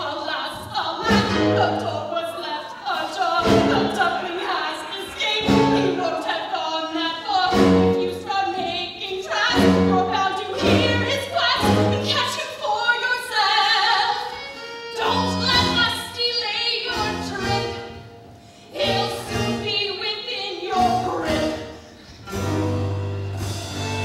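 Live musical-theatre song: cast members singing with instrumental accompaniment, with two brief lulls late on.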